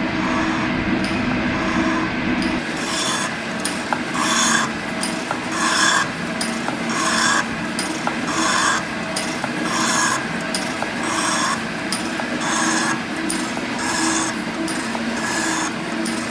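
Metal shaper taking cuts across a cast iron straight edge casting, with machine hum underneath. A scraping cut repeats about every second and a quarter, each one the tool bit shaving through the hard casting scale.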